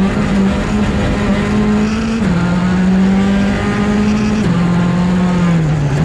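Skoda Fabia R5 rally car's 1.6-litre turbocharged four-cylinder engine running hard at speed, heard from inside the car. Its pitch holds steady, then steps down about two seconds in and again past the middle.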